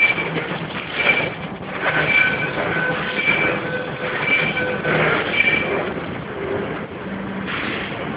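Non-woven bag making machine running: a steady mechanical clatter, with a short high tone that repeats about once a second.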